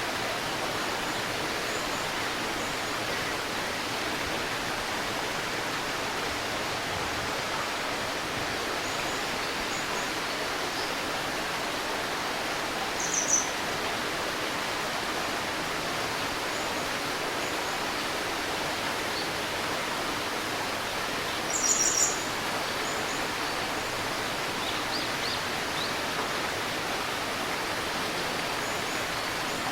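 A small river babbling in a steady, even rush of water. Birds chirp over it, with two brief, louder high chirps, one about a third of the way in and one about two-thirds in, and fainter chirps scattered between.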